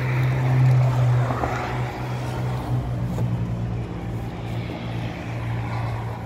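An engine running steadily with a low, even drone, a little louder in the first couple of seconds.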